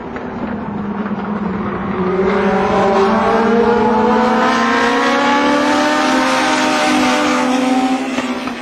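Two Legend race cars' Yamaha four-cylinder motorcycle engines running at high revs on a practice lap. The sound grows louder and climbs in pitch from about two seconds in as they come past, then drops away near the end.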